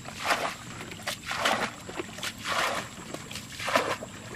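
Muddy ditch water being bailed with a bucket: four splashes, each scoop thrown out about once every second and a bit.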